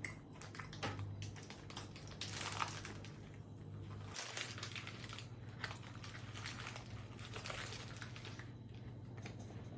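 Close-miked chewing and crunching of food, with many irregular small clicks and crackles over a steady low hum.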